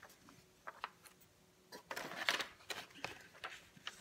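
Paper instruction sheets rustling as they are lifted and handled, in short scattered rustles with a few soft clicks, loudest a little past the middle.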